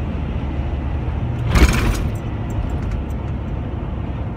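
Steady low rumble of road and engine noise from inside a vehicle travelling on a wet highway, with a brief loud rushing noise about a second and a half in.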